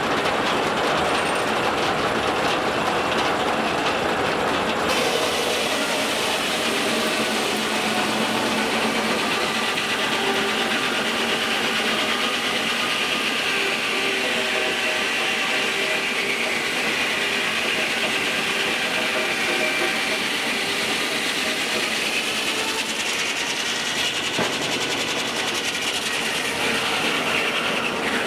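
Steam-powered circular sawmill running: the large circular saw blade spinning and the log carriage rattling along its track. The noise grows hissier about five seconds in.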